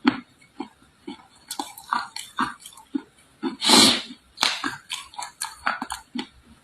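A person biting and chewing dry red clay close to the microphone: a run of short, irregular crunches and crackles, with one longer, louder crunch a little past halfway.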